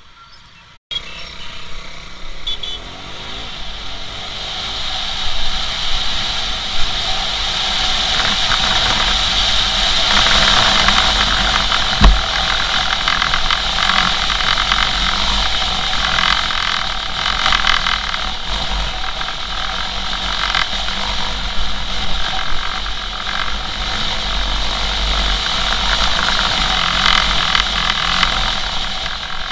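A motorcycle riding on a rain-wet road, heard through a handlebar camera: steady wind and road noise with tyre hiss and the engine underneath. The noise comes up suddenly about a second in as the bike moves off. There is one sharp knock about twelve seconds in.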